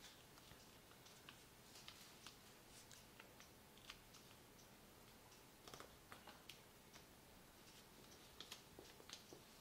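Faint crinkling and small clicks of white paper being folded and creased by hand, scattered irregularly over a low hiss.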